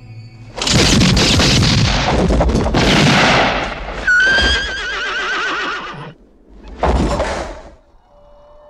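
Film-soundtrack gunfight: a volley of gunshots rings out with long echoes, then a horse whinnies. Another short loud burst follows, and near the end a windmill creaks faintly.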